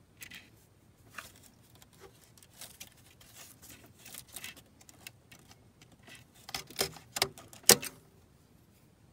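Small clicks, scrapes and rattles of the thermostat-housing retainer clip on an R56 Mini Cooper S coolant crossover pipe being worked off by hand. Near the end comes a quick cluster of sharper clicks and one loud snap as the clip comes off.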